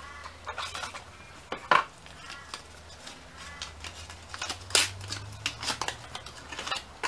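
A chocolate bar's packaging being opened: a run of sharp snaps, crackles and rustles, loudest about two seconds in and again about five seconds in.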